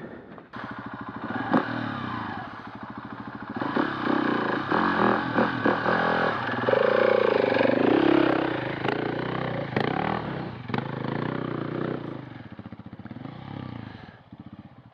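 A single-cylinder dirt bike engine runs at low revs and is blipped while the bike is eased back and forth in a rut, with scattered knocks and scrapes. It is loudest about halfway through and dies down near the end.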